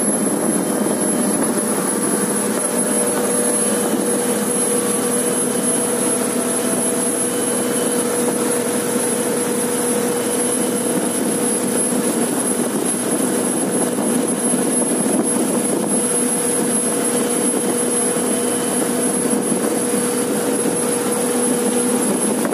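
Speedboat engine running at a steady cruising speed while towing a parasail, a constant drone over the rush of the churning wake and wind.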